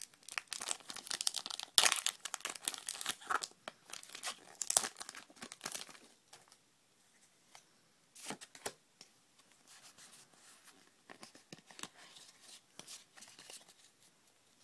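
A foil Pokémon booster pack wrapper being torn open and crinkled, with loud crackling for about the first six seconds. Then softer rustling and light clicks as the cards are taken out of the pack.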